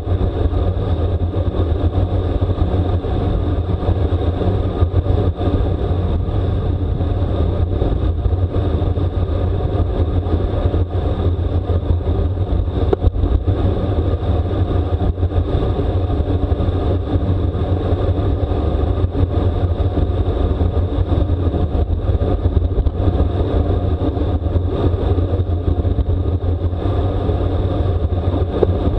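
Steady wind rush and low rumble on a racing bicycle's onboard camera microphone while riding at speed.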